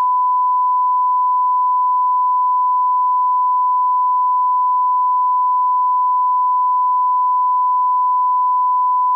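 Broadcast line-up test tone accompanying colour bars: a single pure sine tone held at one steady, fairly high pitch, loud and unchanging throughout.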